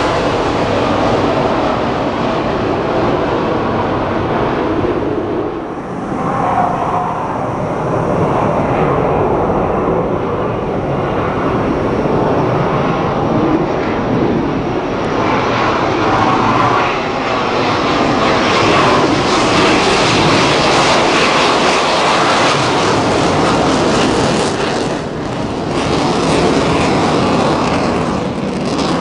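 Military jet aircraft noise: a loud, continuous roar that dips briefly about six seconds in and again near the end.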